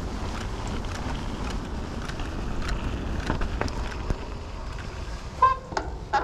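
Canyon Spectral mountain bike on tubeless tyres rolling along a dirt forest trail: a steady rush of wind on the chest-mounted mic and tyre rumble, with scattered clicks and rattles from the bike over bumps. Two short squeaks near the end.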